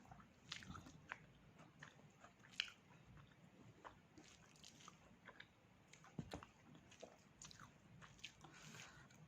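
A person faintly chewing and biting pork, with irregular wet mouth clicks and small crunches, one a little louder about two and a half seconds in.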